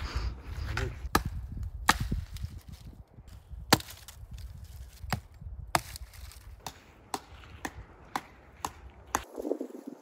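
Firewood being chopped: about a dozen sharp wooden cracks at an irregular pace, roughly half a second to a second and a half apart.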